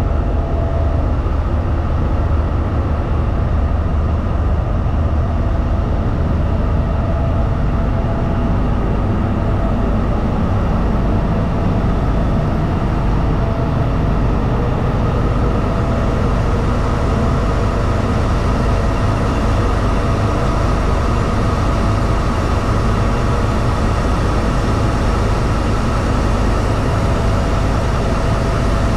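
Twenty-cylinder MTU 20V4000 V diesel prime mover of a CRRC SDA1 locomotive running steadily, heard from inside the engine room: a deep, even rumble with a faint steady whine above it.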